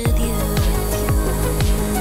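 Background music: an electronic track with a steady beat of about two thumps a second.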